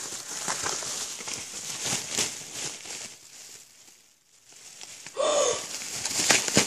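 Plastic packaging rustling and crinkling as a parcel is handled and opened, dropping away briefly about four seconds in. A short pitched sound comes a little after five seconds, followed by more sharp rustles.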